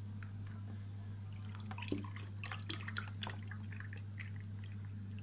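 Small irregular drips and splashes of liquid, clustered in the middle few seconds, over a steady low hum.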